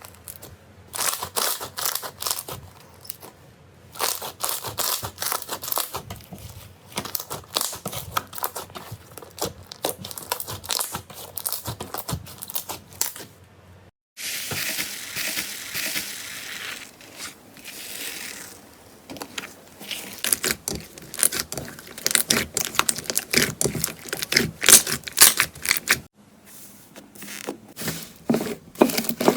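Slime being squished, pressed and stretched by hand, making dense crackling and popping clicks. The sound breaks off briefly twice, and after the first break it turns for a few seconds into a more continuous crinkling hiss.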